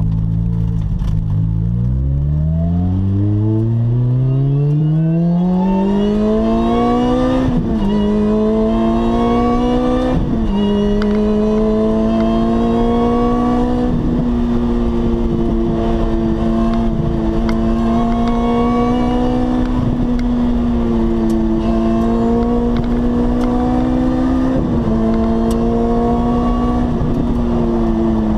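Lotus Exige S engine heard from inside the cabin, accelerating hard from low speed. There are upshifts about seven and ten seconds in, then it holds a fairly steady cruising pitch with brief dips from small throttle lifts. It eases off at the very end.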